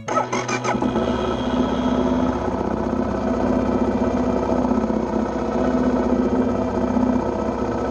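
BMW G650GS single-cylinder engine running steadily, with a few sharp rattles in the first second.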